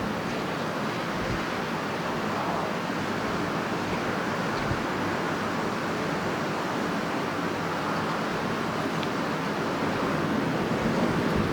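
Strong wind blowing in a continuous rushing noise that swells a little near the end.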